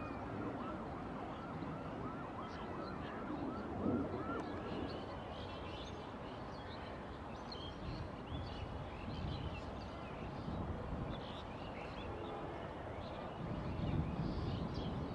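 Twin RD-33 turbofans of a MiG-29 heard from a distance as a steady rumbling roar, growing louder near the end as the jet climbs away overhead. Short high chirps repeat a few times a second over it in the first few seconds.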